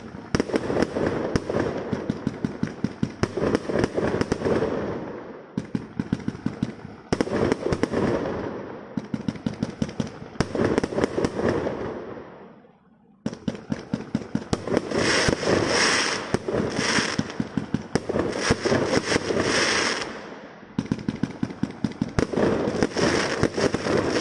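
Fireworks going off in several runs of a few seconds each: quick trains of sharp bangs, about three to four a second, over a crackling hiss, with a short pause about halfway through.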